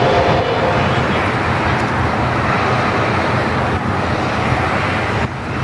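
Airbus A319 jet engines running at taxi power, heard from a distance as a steady rumble and hiss. The sound drops abruptly near the end.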